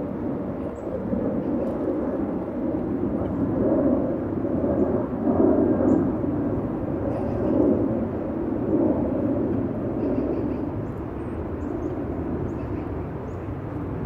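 Wind buffeting the microphone in a loud, uneven, gusting rumble, with a few faint, short, high chirps from small birds now and then.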